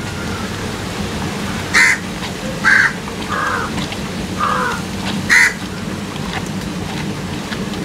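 Crows cawing: five short, harsh caws spread over about four seconds, some louder and sharper than others.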